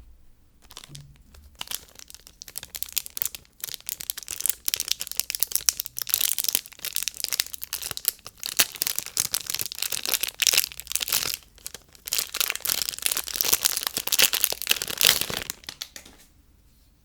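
Soap packaging being unwrapped by hand: a dense run of crinkling and tearing. It starts about a second in, is loudest in the second half and stops about a second before the end.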